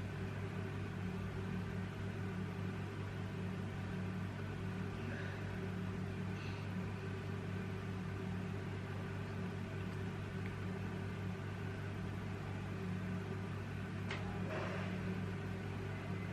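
Steady low machine hum, such as an appliance or fan running in a small room. Near the end a sharp click is followed by a short hiss-like noise.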